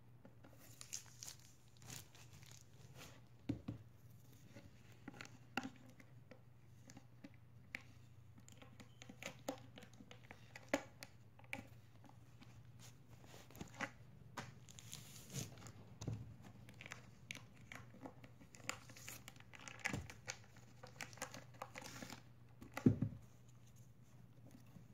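Plastic wrapping being peeled and torn off a rolled poster: irregular soft crinkles and crackles, with a sharper crackle near the end.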